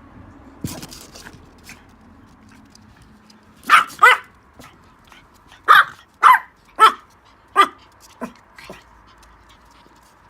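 A dog barking: six short barks in quick succession, then two softer ones. A thump comes a little under a second in.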